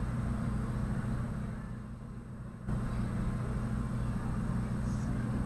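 A steady low hum over background hiss; it dips slightly about two seconds in and steps back up just before three seconds.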